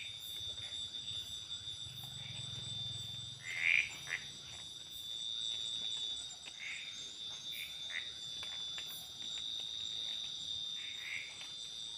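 Night tropical forest chorus: steady, high-pitched insect trilling, with frogs croaking in short calls every few seconds; the loudest call comes about four seconds in.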